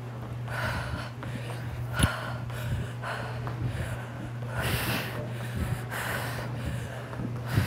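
A woman breathing hard from exertion, forceful exhalations about once a second. One sharp knock about two seconds in, over a steady low hum.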